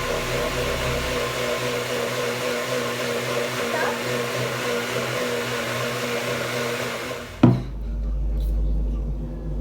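Kitchen blender running steadily, blending a smoothie with a whirring motor whine, then cutting off with a sharp click about seven seconds in, followed by a low rumble.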